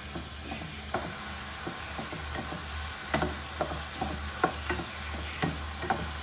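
Diced chicken, onions, tomatoes and peppers sizzling in a nonstick frying pan as a spatula stirs them, its strokes scraping and tapping against the pan at irregular moments. A low steady hum runs underneath.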